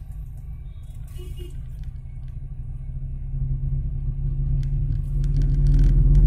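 Car engine and road rumble heard from inside the moving car's cabin, a steady low drone that grows louder toward the end.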